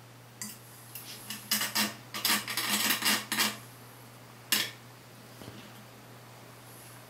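Light clattering and clinking of small hard objects being handled, in a busy run of about three seconds followed by one more sharp clink a second later, over a steady low hum.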